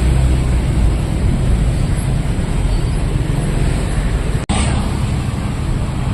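Steady street traffic noise with a heavy low rumble from passing vehicle engines, cutting out for an instant about four and a half seconds in.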